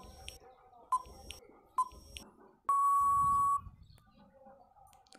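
Quiz countdown-timer sound effect: three short ticks about a second apart, then one long, steady electronic beep lasting about a second, signalling time out.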